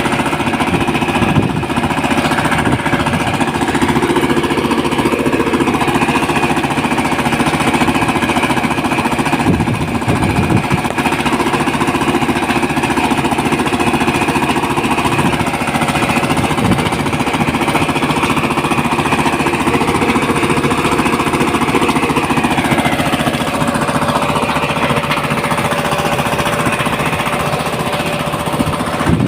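Excavator running loudly and steadily with a rapid, jackhammer-like pounding; its engine note drops a little about three quarters of the way through.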